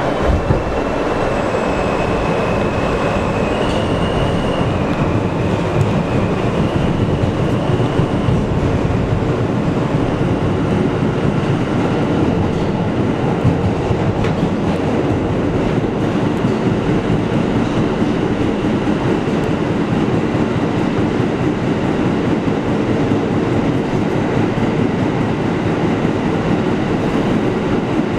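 New York City subway train running through a tunnel, heard from inside the front car: a loud, steady rumble of wheels on rail. A faint high whine that steps up and down in pitch sounds over it during the first several seconds.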